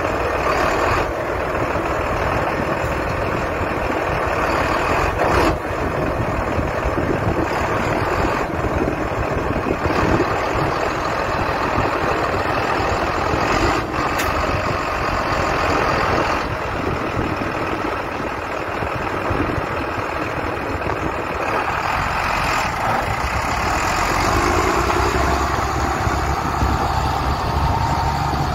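Tractor engines running steadily at work in the field, with a couple of brief knocks from the machinery.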